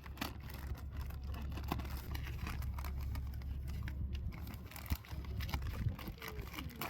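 A box being opened by hand: irregular small clicks, taps and rustles of cardboard and packaging being handled, over a steady low hum.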